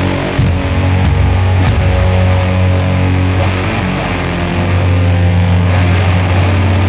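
Slow sludge/doom metal: heavily distorted, down-tuned guitars and bass holding long, low chords, with two cymbal hits about one and almost two seconds in.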